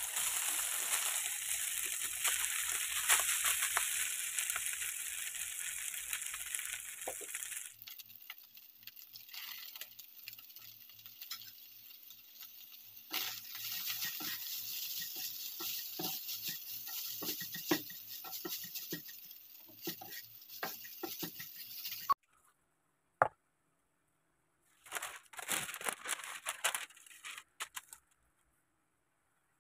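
Cooked rice sizzling in hot oil in a nonstick frying pan as it is fried into sinangag (garlic fried rice). The sizzle is loudest at first, then goes on more softly under the clicks and scrapes of a spatula stirring the rice, and cuts off suddenly a little past two-thirds of the way through. Near the end there is a short rustle of parchment paper being smoothed by hand.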